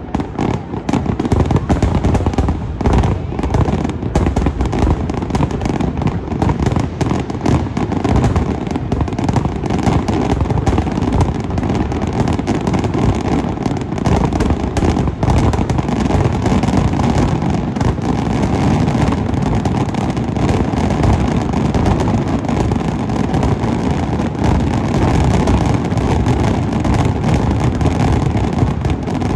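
Fireworks finale: a dense, continuous barrage of shell bursts and crackle, booms following one another too fast to count.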